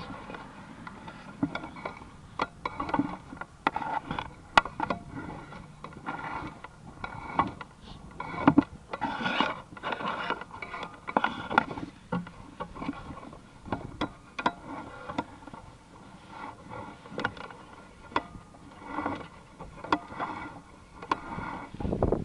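Sewer inspection camera's push cable and reel being worked: irregular clicks, knocks and scrapes with no steady rhythm, several sharper knocks standing out.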